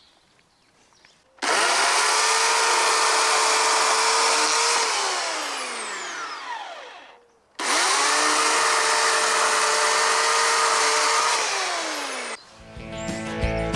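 Chainsaw run twice: each time the motor spins up with a rising whine, runs steadily for a few seconds, then winds down. Guitar music comes in near the end.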